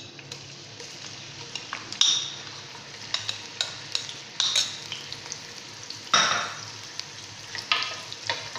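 Ginger-garlic paste frying in hot oil in a karahi, sizzling steadily while it is stirred, with repeated scrapes and clinks of the utensil against the pan; the loudest scrapes come about two and six seconds in.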